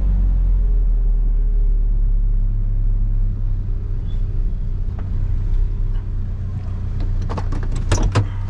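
A steady low rumble, with a quick run of sharp knocks about seven to eight seconds in.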